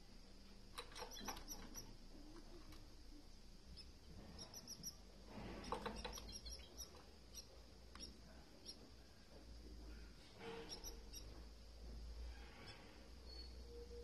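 Canary chicks in the nest peeping faintly in quick runs of short, high chirps, begging as the hen feeds them. A brief soft bump a little before the middle.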